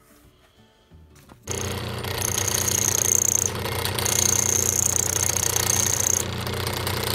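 A grinding wheel on an old electric motor runs with a steady hum, starting abruptly about a second and a half in. A carbide saw-blade tooth is pressed against it twice, each time giving a high-pitched grinding screech of a second or two. This is relief being ground onto the tooth so the fly cutter stops rubbing and cuts cleanly.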